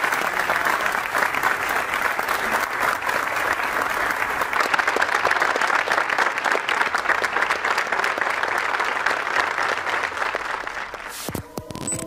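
A group of people applauding together, a dense steady patter of many hand claps that dies away about eleven seconds in.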